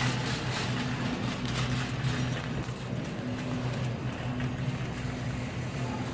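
Wire shopping cart rolling and rattling along a store floor, over a steady low hum.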